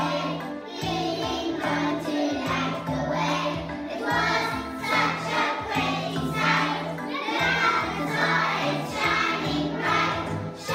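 A group of young children singing a song together in unison over instrumental accompaniment with a steady, slowly changing bass line.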